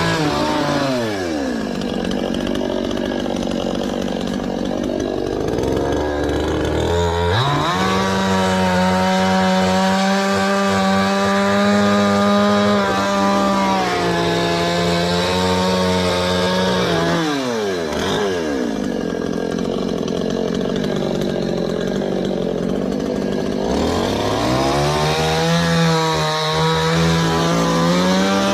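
Two-stroke chainsaw cutting a coconut palm trunk. It holds a steady high full-throttle pitch for long stretches and drops back to idle twice between cuts before revving up again.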